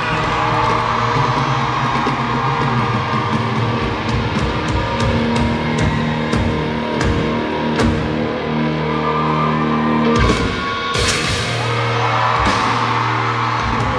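A live rock band playing an instrumental passage through the concert sound system: electric guitars over a drum kit, with a loud cymbal crash about ten seconds in.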